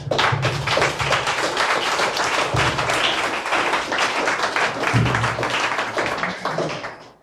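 Audience applauding at the end of a talk: a dense run of hand claps that fades out near the end.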